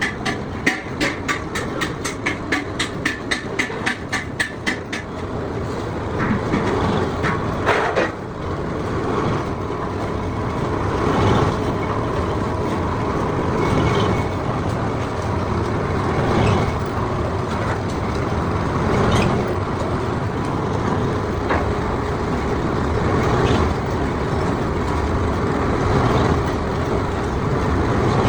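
Workshop noise: a fast run of sharp strikes, about four a second, for the first five seconds. Then a steady mechanical din that swells every two to three seconds.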